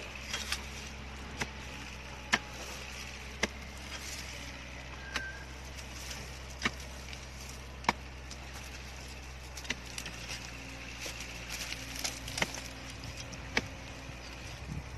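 A long-handled digging tool striking a hard-packed earthen termite mound: repeated sharp knocks, roughly one every second or so, as the mound is broken open to dig out termites.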